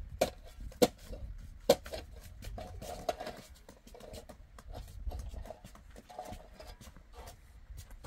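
Long-handled steel shovel digging into dry, stony earth: the blade strikes and scrapes against rocks in a run of sharp knocks, the two loudest about one and two seconds in.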